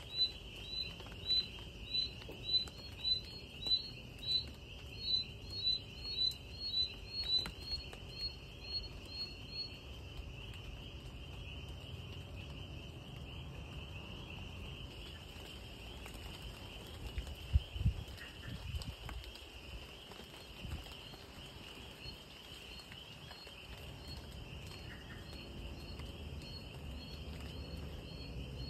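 Night-time chorus of insects: a steady high trill with a sharper chirp repeating about every half second. The chirps fade after about ten seconds and come back faintly near the end. A few soft low thumps fall around the middle.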